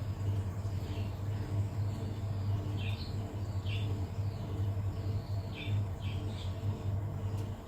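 Steady low hum of a Vokera Procombi 85HE combi boiler running on heating, with a bird chirping briefly several times over it.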